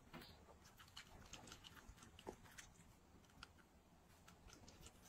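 A Shiba Inu chewing and licking food: faint, irregular small wet clicks.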